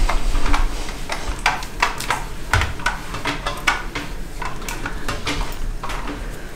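Irregular light clicks and clatter, several a second, over a low hum.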